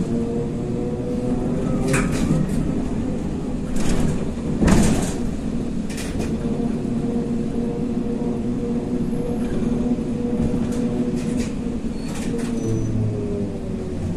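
ZiU-682G trolleybus heard from inside the cabin while under way: its traction drive gives a whine that rises in pitch as it gathers speed, holds steady, and falls near the end as it slows, over a road rumble. Several sharp knocks and rattles from the body cut through it.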